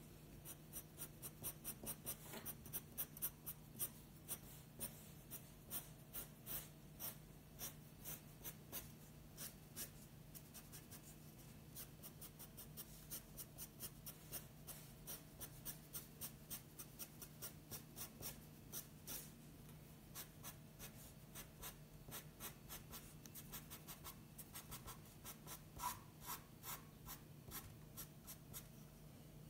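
Faint scratching of a pencil on paper in quick, short strokes, a few each second, sketching fur, over a faint steady low hum.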